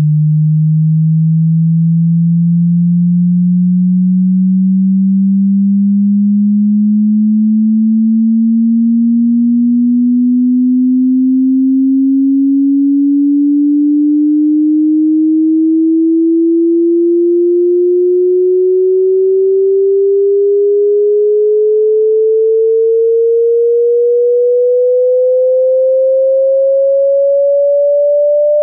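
Pure sine tone slowly and steadily rising in pitch, from a low hum to a mid-range tone. It is a frequency sweep for ejecting water from a phone speaker or earphones: the tone vibrates the speaker to push the water out.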